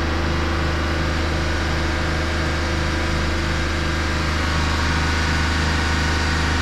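Chevrolet Suburban's 5.3-litre V8 running at a steady high idle of around 3,000 rpm, heard from inside the cab. The idle is high because the engine computer has not yet relearned idle airflow for the newly installed throttle body.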